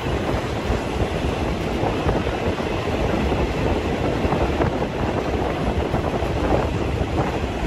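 Passenger train carriages running along the track, heard from an open carriage window: a steady rumble of wheels on rails.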